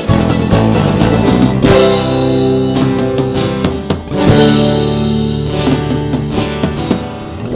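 Background music: an instrumental stretch of a song led by guitar, with drums, and no singing.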